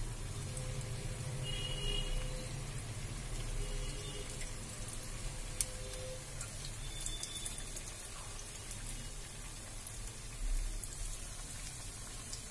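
Potato patties shallow-frying in hot oil in a pan, the oil sizzling steadily with scattered crackles. A single sharp click about halfway through.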